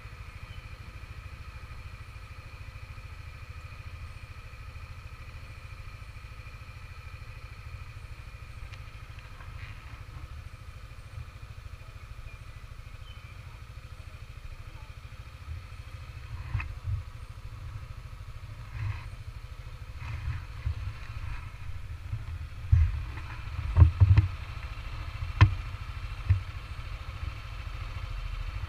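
Yamaha NMAX 155 scooter's single-cylinder engine idling steadily. In the second half come a few knocks and low thumps, the loudest a sharp knock near the end.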